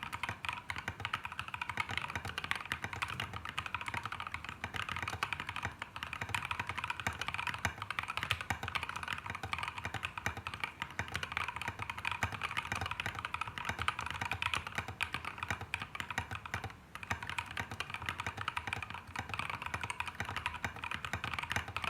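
Fast, steady typing on a custom GK61 mechanical keyboard in an aluminium case, fitted with SA keycaps and linear switches built from C3 Tangerine and NovelKeys Cream parts, lubed with Krytox 205g0. The keystrokes come thick and even, with a brief pause about seventeen seconds in.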